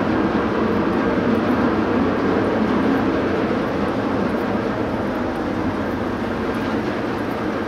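Steady drone of a docked car ferry's engines and machinery running.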